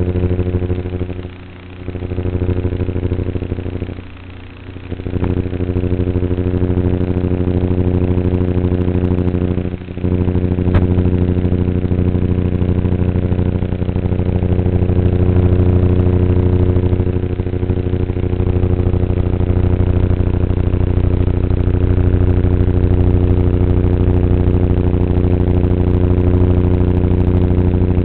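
Electric motor and propeller of an E-flite Apprentice S RC plane droning steadily in flight. The throttle is briefly eased off three times early on, the drone dipping about a second and a half in, around four to five seconds in, and briefly at about ten seconds. After that it holds at a steady pitch.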